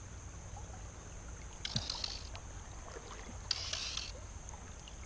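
Water splashing in two short bursts, about two and four seconds in, as a hooked trout thrashes at the surface during the fight. Under it runs the steady rush of the stream.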